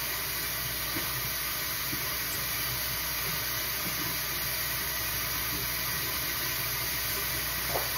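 Steady, even hiss of background noise with a few faint light ticks.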